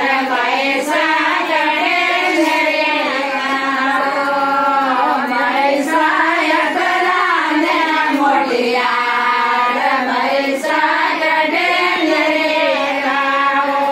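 A group of women singing a traditional Rajasthani wedding song together, several voices overlapping in a steady, continuous chant-like melody.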